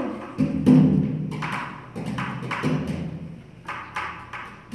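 Percussive knocks and thumps, with short wordless pitched vocal sounds among them, part of a live improvised dance-and-voice performance.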